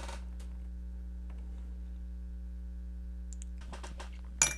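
Steady low hum with a few faint clicks, then near the end a cluster of small clicks and a sharp clink with a brief ring as a circuit board is set down into a small glass bowl.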